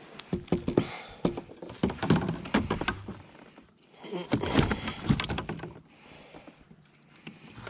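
A bass being reeled in and landed in a net aboard a plastic fishing kayak: a run of knocks, clicks and thumps as the net, rod and fish bump the hull. The knocks come in two clusters, with short quieter gaps between.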